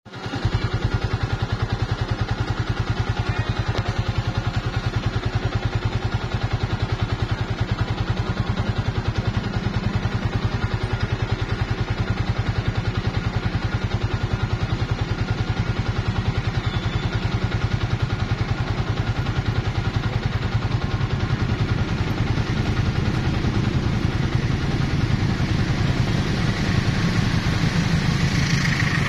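A motor vehicle's engine running steadily with a fast, even pulse. Near the end it grows a little louder as a train approaches.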